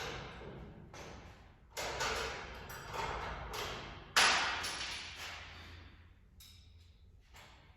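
A series of sharp knocks and bangs, each fading away with a short ring or echo; the loudest comes about four seconds in, with weaker ones after it.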